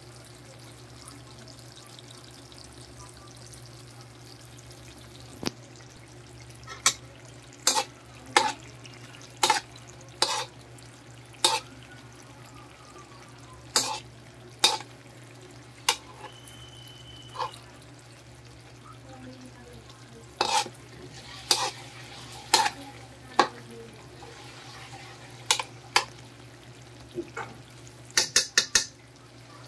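Thick coconut-milk sauce of ginataang papaya with sardines simmering in a wok, its bubbles bursting in sharp, irregular pops about once a second, with a quick run of several pops near the end. A steady low hum lies underneath.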